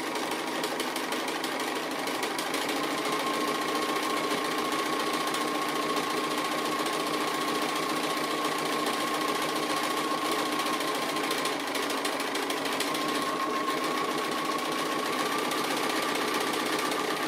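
Bernina sewing machine running steadily during free-motion applique stitching, the needle going up and down rapidly with a steady motor whine. The whine strengthens about three seconds in and edges up slightly in pitch near the end.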